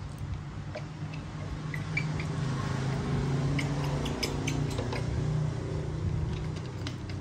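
Baby monkey sucking from a small feeding bottle: soft scattered clicks over a steady low hum.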